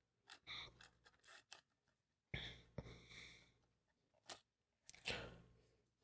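Near silence with a few faint clicks and scrapes from hand-adjusting the threaded pad of a metal toggle clamp, with one sharper click about four seconds in.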